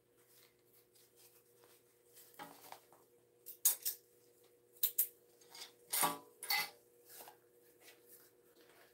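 A stiff vinyl tote bag being handled and its top edge folded over with tape: soft rustling broken by a few short, sharp crinkles and crackles.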